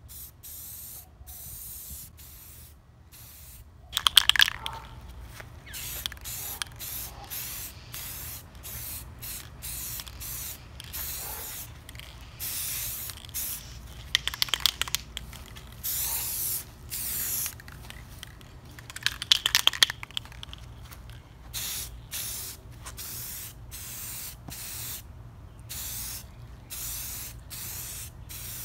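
Aerosol spray paint can hissing in many short bursts as the pieces are sprayed. Three times (about four seconds in, about midway, and about two-thirds through) the can is shaken and its mixing ball rattles loudly.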